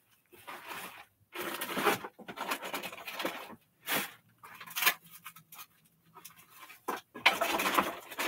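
Rummaging through pet-care supplies: plastic and packaging rustling and clattering in irregular spells, with two sharp knocks about four and five seconds in.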